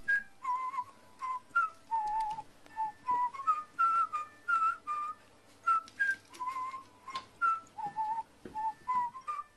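Pet carrion crow giving a rapid string of short, squeaky chick-like calls, about two a second, each note wavering up or down in pitch.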